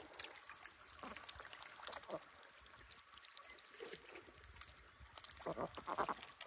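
Domestic ducks dabbling in shallow pond water at the bank, their bills sifting and splashing with a soft, irregular patter of small clicks and slurps. A few louder short sounds come near the end.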